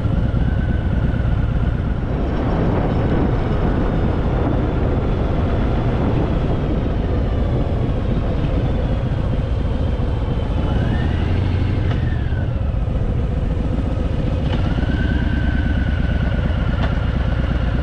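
Harley-Davidson Fat Boy's V-twin engine running as the motorcycle rides a steep hairpin descent. Its note rises and falls as it takes the bends, most clearly about ten seconds in and again near the end.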